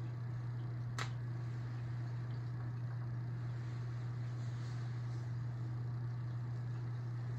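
Aquarium filters running: a steady low hum under an even wash of moving water. One sharp click about a second in.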